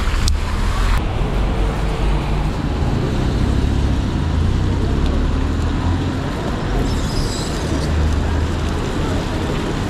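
Steady road traffic noise on a wet city street, with a deep, uneven rumble underneath. A single sharp click comes shortly after the start.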